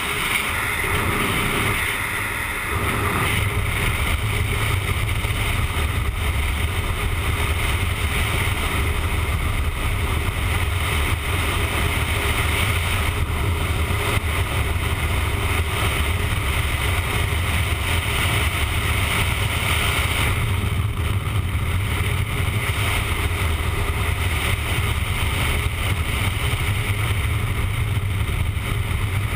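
Motorcycle running at steady highway speed, with wind rushing over the camera microphone and a steady low engine and road rumble underneath. It is slightly quieter for the first two or three seconds.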